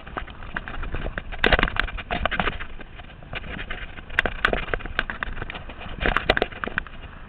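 Mountain bike clattering over a rough dirt trail: irregular knocks and rattles from the frame, chain and wheels, with a steady rush of tyres on dirt, the rattling heaviest in a few rough patches.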